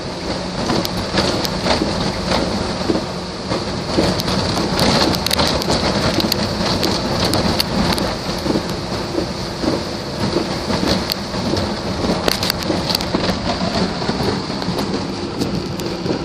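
Muddy flash-flood runoff rushing down a gravel street: a loud, steady rush of water with a low rumble and frequent crackles.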